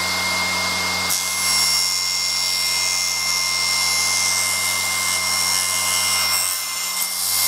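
Table saw running at full speed while a thin wooden drawer-divider strip is fed through the blade, with a steady high whine throughout. About a second in the sound changes as extra high tones come in.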